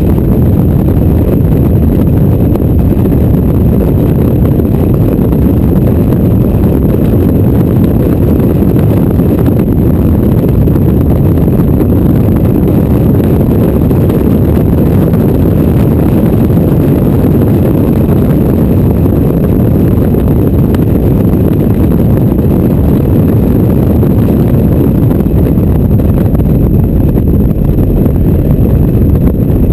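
Loud, steady low rumble of a Mazda MX-5 driven fast with its top down: wind buffeting the microphone, mixed with engine and road noise.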